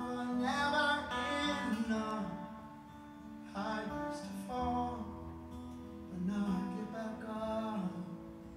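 Live solo performance: a man singing over his own strummed acoustic guitar, his voice dropping out briefly around the middle before the next phrases.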